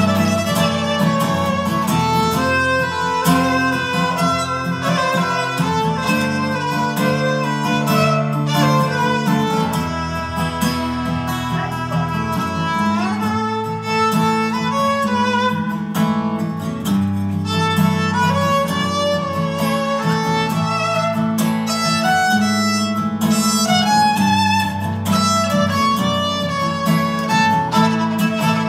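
Instrumental passage: a violin playing the melody over acoustic guitar accompaniment.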